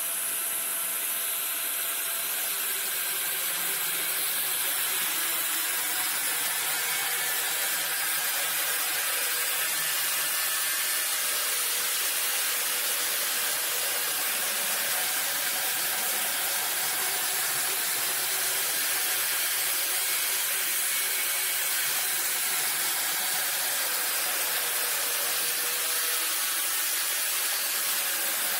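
Angle grinder running continuously against the sheet-steel door of a 1929 Ford Model A, grinding the metal and throwing sparks. It is a steady, hissing grind with no let-up.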